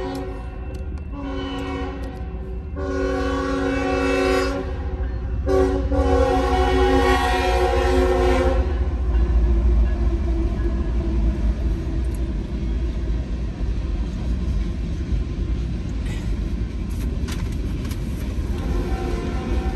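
Locomotive horn sounding four blasts, the last held about three seconds, followed by the steady rumble of the train rolling past.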